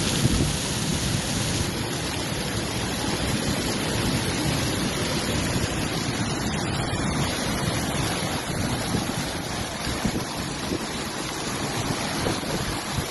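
Floodwater rushing in a steady, dense wash of noise, with wind buffeting the microphone.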